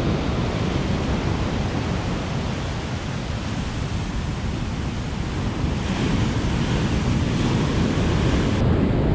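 Heavy surf breaking and washing on the shore, with wind on the microphone; the noise eases a little in the middle and builds again from about six seconds in.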